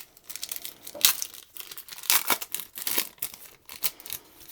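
Wax-paper wrapper of a 1990-91 NBA Hoops card pack being torn open and crinkled by hand, a run of irregular crackles and rips.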